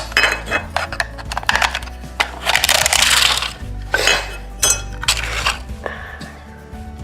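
3D-printed plastic support material clicking, scraping and cracking as it is worked loose and broken out of a printed part, with a longer scrape about three seconds in. Background music plays underneath.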